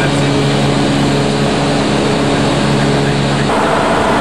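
Steady flight-deck noise of an Airbus A340 in the climb: rushing airflow with a low, even hum. About three and a half seconds in, the hum drops out and the rush turns brighter and hissier.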